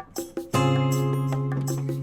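Background music: light plucked and percussive notes, then about half a second in a loud sustained chord that holds.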